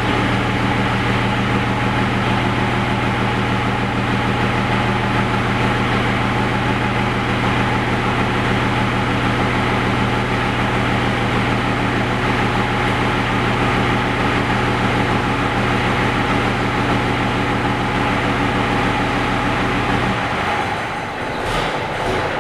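Gardner six-cylinder diesel of a Bristol RE bus idling steadily while still cold, soon after a reluctant start after weeks of standing. The steady engine note drops away near the end.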